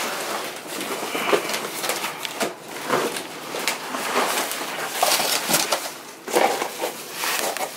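Cardboard shipping box being ripped open by hand: a run of irregular tearing, scraping and rustling noises with several sharp rips.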